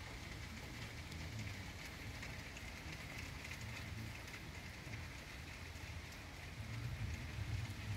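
Heavy rain pouring steadily, a dense even hiss, with a low rumble underneath that swells near the end.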